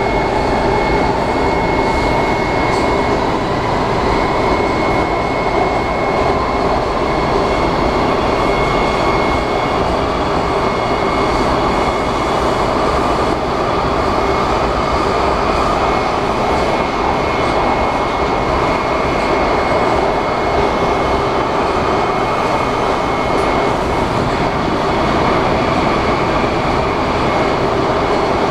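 Inside a Washington Metro 7000-series railcar running at speed through the tunnel: a steady, loud rumble and roar of wheels on rail. A thin, steady high whine sits over it and fades about ten seconds in.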